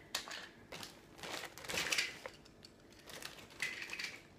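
Toy packaging being handled: irregular crinkling and rustling with a few sharp clicks as a small boxed toy is picked up and turned in the hands.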